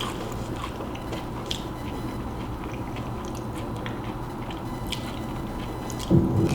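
Close-miked chewing and biting: soft wet mouth sounds with scattered small clicks and crackles over a steady low hum. A dull thump stands out about six seconds in.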